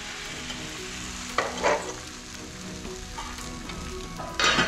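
Masala-coated boiled eggs sizzling in hot oil on a flat pan, with a metal spatula scraping across the pan twice, about a second and a half in and again near the end, as the eggs are roasted and nudged over.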